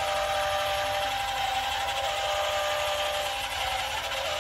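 Radio-controlled dump truck's tipping mechanism raising the loaded bed, its small electric motor whining steadily with a few held tones. The pitch shifts slightly a little before the end.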